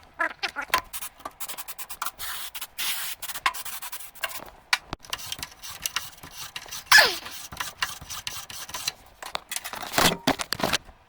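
Contacts of a RAM stick being rubbed clean in quick back-and-forth strokes. A short squeak that falls in pitch comes about seven seconds in, and a couple of knocks near the end.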